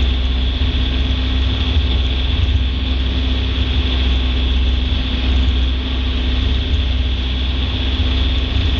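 Fishing boat's engine running steadily while trolling, a deep even drone with a steady hum over it and no change in speed.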